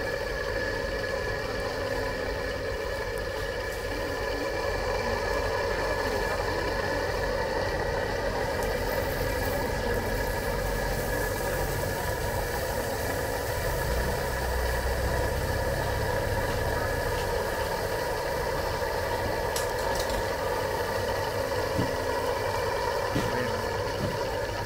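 Steady mechanical hum, several constant tones over a noisy background, with a low rumble swelling for a couple of seconds about fourteen seconds in.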